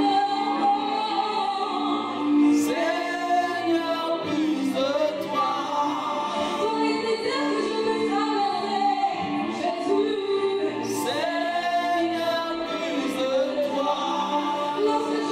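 A woman singing a worship song into a microphone, over a steady held instrumental accompaniment.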